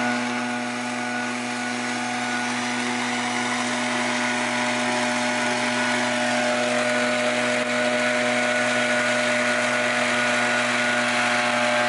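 Small petrol engine of a walk-behind herb harvester (hand mower with a catch sack) running at a steady high speed while it is pushed along the rows, cutting lemon balm.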